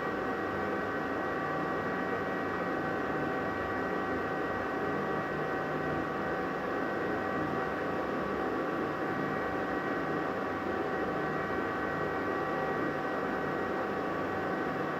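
Bathroom exhaust fan running steadily: a constant whooshing air noise with a steady high-pitched whine over it.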